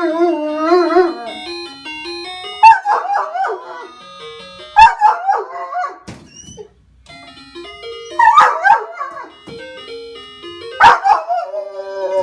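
A dog barking and howling over a tinkling melody. Sharp barks come every two to three seconds, each running into wavering howls, with a short lull around the middle.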